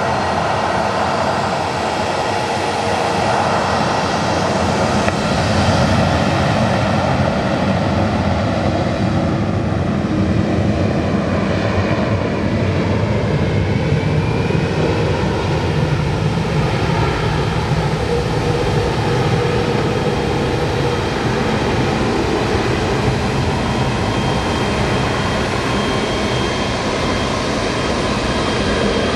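Jet airliner engines running close by: a loud, continuous rush and whine, with thin tones in the whine sliding in pitch around the middle.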